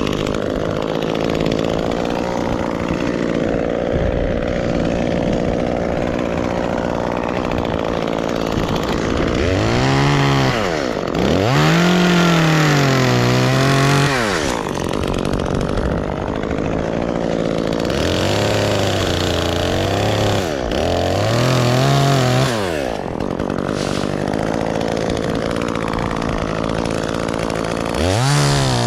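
Gasoline chainsaw running, revved up about four times with the pitch climbing and falling back, held at a lower steady speed in between.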